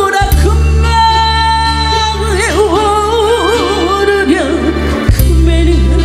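A woman singing a slow ballad into a microphone, her held notes wavering with vibrato, over an accompaniment-machine backing track with sustained bass notes, played through a PA. The bass cuts out briefly about five seconds in, then comes back on a new note.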